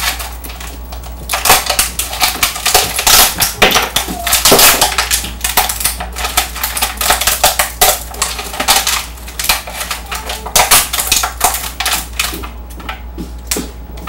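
A sheet of hardened glass candy (boiled sugar and corn syrup) being cracked and broken apart by hand: a rapid run of sharp crackles and clinks as the brittle pieces snap and knock against a plate, dense from about a second and a half in, thinning out near the end.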